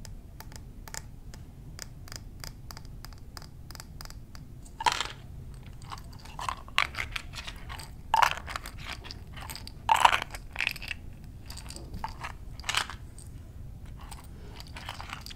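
Close-miked tapping and handling of mini-bar bottles, fingernails clicking on hard surfaces. It starts as a run of quick, light clicks, then gives way to a handful of louder knocks and scrapes.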